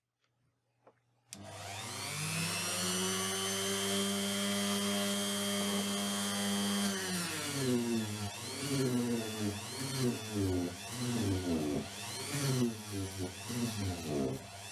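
Small electric power tool switched on with a click a little over a second in, spinning up to a steady whine. About halfway through its speed starts dipping and recovering over and over as it is pressed into the metal of the axe head.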